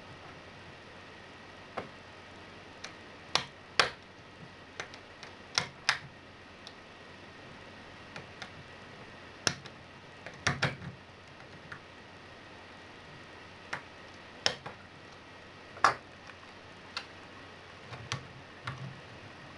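Lock pick and tension wrench clicking in a brass MILA Evolution euro profile cylinder during single-pin picking: irregular sharp metallic clicks, some in quick pairs, over a faint steady hiss.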